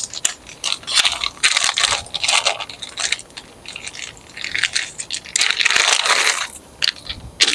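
Small plastic bag of skateboard hardware being opened and crinkled, with loose steel nuts and bolts clicking and clinking against each other.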